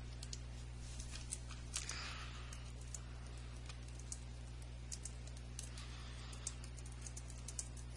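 Computer keyboard typing: light key clicks at an irregular pace as a sentence is typed, over a steady low electrical hum.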